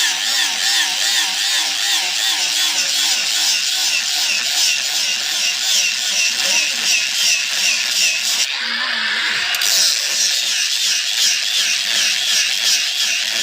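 A power tool's motor whining steadily, its pitch wavering up and down in a quick, even cycle.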